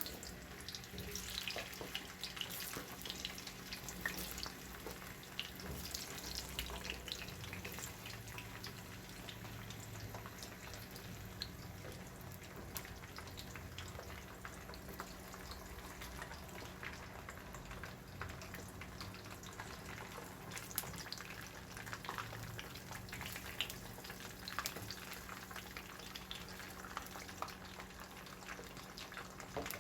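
Zucchini slices frying in a pan, oil crackling and sizzling with many scattered small pops, over a steady low hum.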